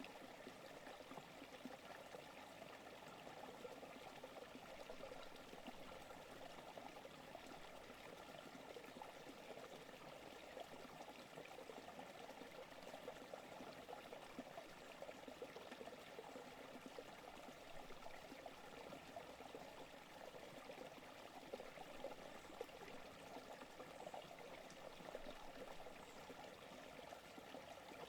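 A forest creek running, a steady faint trickling of water.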